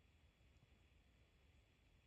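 Near silence: faint room tone with a low, steady background rumble.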